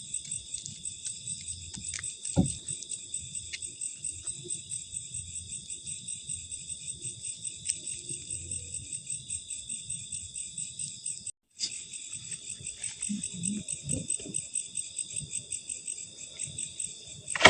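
Crickets chirping in a dense, fast-pulsing chorus. The chorus cuts out for a moment about eleven seconds in, and there is a sharp knock a couple of seconds in.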